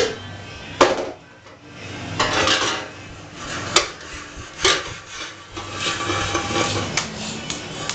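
A large round white plate scraped and pushed across a tile floor by a baby, with several sharp clatters as it knocks against the tiles.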